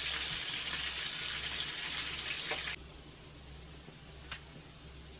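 Kitchen tap running steadily, then shut off suddenly nearly three seconds in; a single light click follows.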